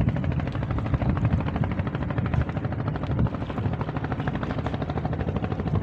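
Small fishing boat's engine running steadily, a fast, even putter.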